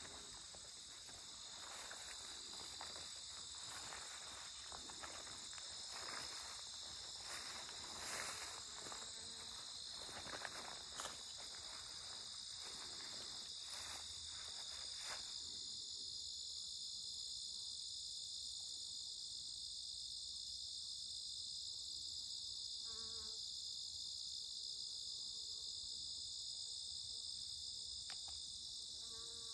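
Steady high-pitched chorus of crickets and other meadow insects. For the first half, footsteps and rustling through tall goldenrod and grass, which stop about halfway.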